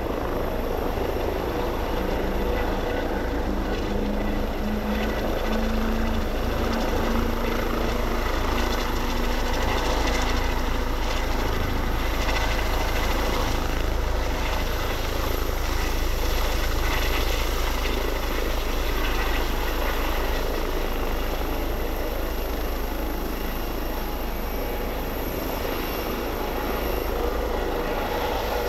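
Eurocopter EC135 helicopter hovering low, its twin turbine engines and rotors running steadily with a strong low rumble, a little louder in the middle as it passes closest.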